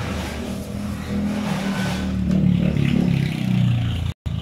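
A motor vehicle's engine running close by as it passes, a low hum that grows louder over the first few seconds and then cuts off abruptly near the end.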